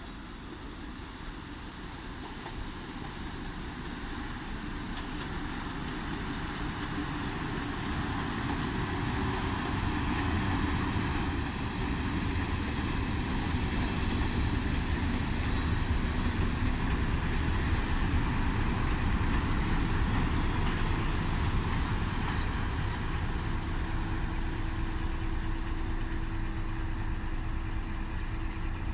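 Diesel locomotive hauling hopper wagons past on the track, engine running and wheels rolling, growing louder as it approaches. A brief high wheel squeal comes about twelve seconds in.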